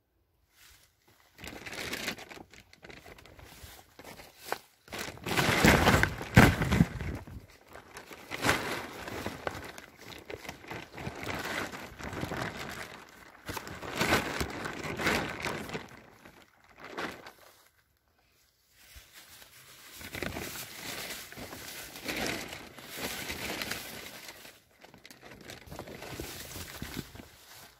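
Blue plastic tarp crinkling and rustling as it is handled, in irregular bursts. The loudest bursts come a few seconds in, and there is a short pause about two-thirds of the way through.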